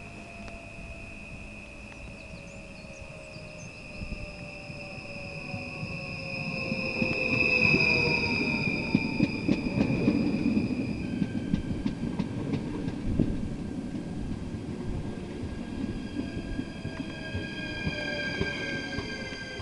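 NS Sprinter electric multiple unit pulling in alongside the platform: its motor whine falls in pitch as it slows, over a steady high brake squeal, and the rumble and clatter grow loudest as it draws level about eight seconds in. From about eleven seconds a different set of steady high electrical whines comes from the train as it stands.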